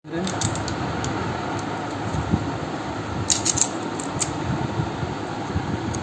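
Small clicks and taps of a keypad phone's plastic parts and circuit board being handled, a few near the start and a cluster a little past the middle, over a steady hum of background noise.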